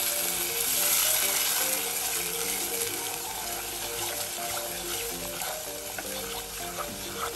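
Sorrel liquid sizzling and bubbling in a saucepan of hot melted butter and brown sugar as it is stirred with a wooden spoon. The sizzle is loudest in the first couple of seconds and then eases. Background music plays underneath.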